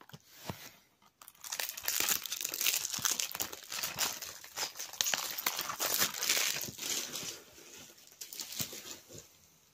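Thin plastic packaging crinkling and tearing as it is handled, starting about a second in. The dense crackling thins to a few fainter crackles near the end.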